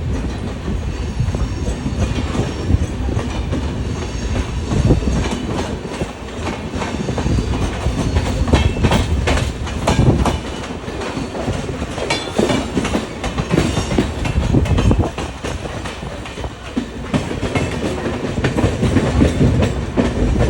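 Coaches of an express passenger train rolling past at low speed as it enters a station, with a steady low rumble and the wheels clacking irregularly over rail joints and points.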